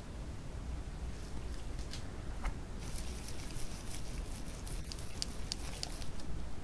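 Light ticking and tapping of soap-making utensils, thickest in the middle, as soap batter is poured into a plastic squeeze bottle and a spatula works in a glass beaker. A low steady hum runs under it.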